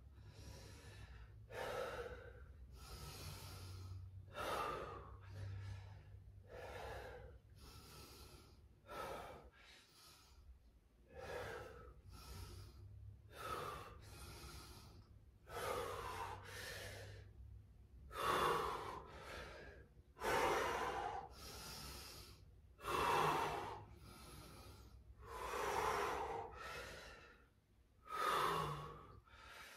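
A person breathing hard in and out while exercising, about one breath a second, the breaths growing louder in the second half.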